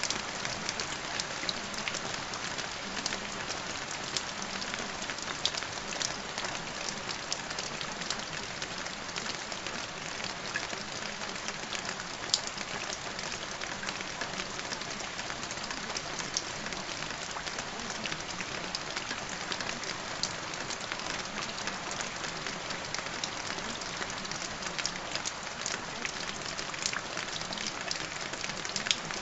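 Calm, steady rain: an even hiss with many small, sharp drop ticks scattered through it.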